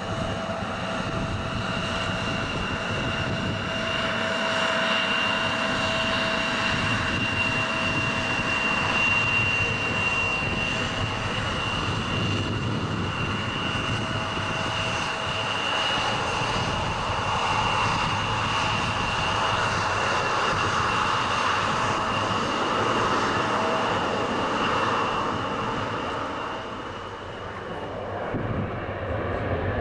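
Airbus A320-family airliner on final approach, its jet engines giving a steady whine with a high tone and a lower tone held over a wide rush. Near the end, as it flares to land, the sound dips briefly and then swells again.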